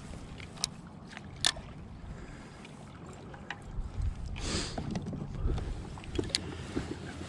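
Kayak on the water: steady low rumble of wind and water, with a few sharp clicks or knocks and a brief rushing swish about four and a half seconds in.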